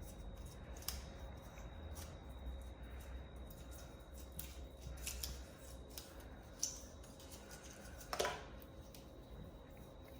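Phone box packaging being handled: light crinkling of paper wrap and cardboard with scattered small clicks and taps, and a louder scrape about eight seconds in.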